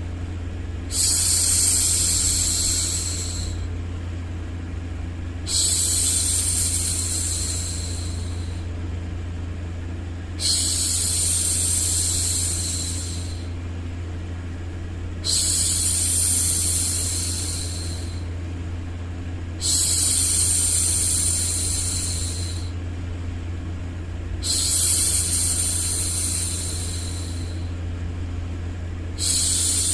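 A woman's voice making long 'shhh' hushing sounds to soothe a baby. Each hush lasts about three seconds and comes every four to five seconds, about six times, over a steady low hum of background noise.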